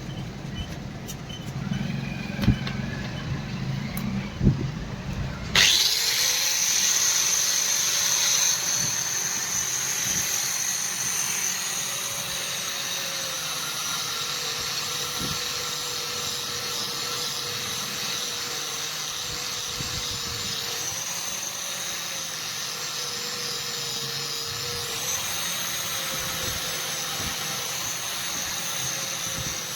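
An electric power tool in metalworking starts up suddenly about five seconds in and then runs steadily, its pitch dipping briefly now and then as it is loaded against the work. Before it starts there is a low hum with a few knocks.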